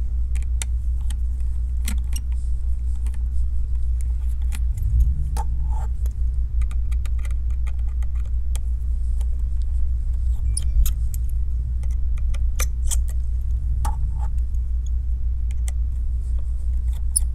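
Faint small metallic clicks and ticks of a tri-point screwdriver and tiny screws as four screws are taken out of an iPhone 12's top bracket, scattered irregularly over a steady low hum.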